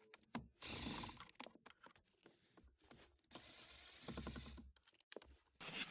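Faint clicking and scraping of a screwdriver backing out the two Phillips screws of a plastic trim panel under a car's steering column, in two short spells, about a second in and again from about three and a half seconds.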